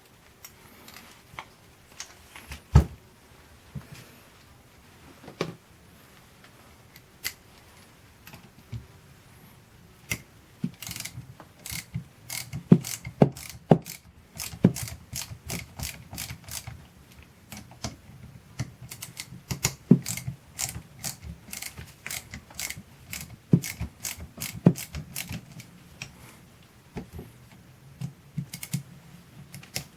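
Hand tools clicking and knocking against the metal parts of a car starter motor as it is taken apart to remove the solenoid. The sharp clicks are scattered at first and come thick and fast from about a third of the way in.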